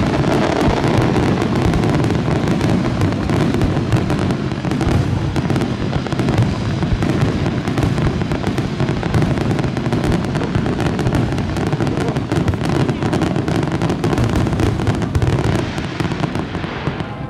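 Large fireworks display: a dense barrage of aerial shells bursting, with rapid overlapping bangs and crackling that ease slightly near the end.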